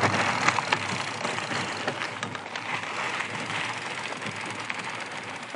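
Fat-tyre electric mountain bike rolling over a rough dirt road: tyre crunch with the bike rattling, growing quieter as it slows.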